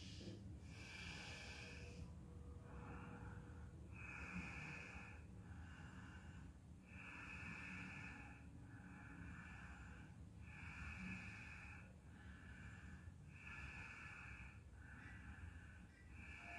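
A man's faint, steady breathing through the nose while he holds a seated yoga spinal twist: an even series of soft inhales and exhales, each about a second long.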